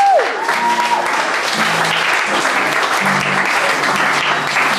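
Audience applause at the end of a live rock song, with the singer's last held note sliding down and cutting off just at the start and low guitar notes ringing under the clapping.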